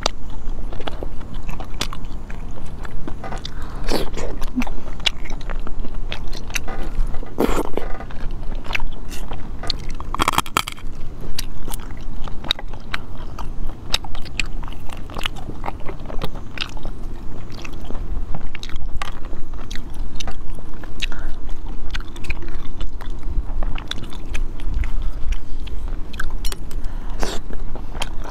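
Close-miked eating of spicy sea snails: wet chewing and mouth sounds, with many small clicks as the shells are handled and the meat is pulled out. A few louder bursts stand out in the first half.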